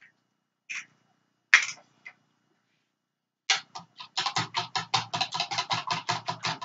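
Eggs being beaten by hand with a fork in a bowl: a few separate taps, then from about three and a half seconds in a fast, even clacking of about six strokes a second.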